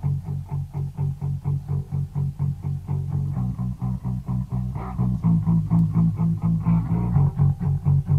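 Two jaw harps played together: a low droning twang plucked in a quick, steady rhythm, with the overtones shifting as the mouths change shape. The playing gets louder about five seconds in.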